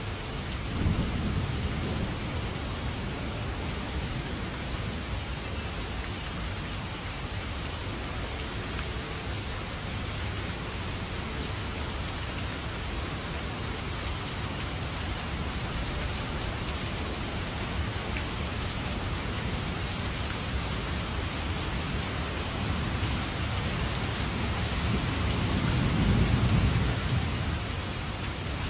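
Heavy rain falling steadily, with low rolls of thunder about a second in and again near the end, the later roll the louder and longer.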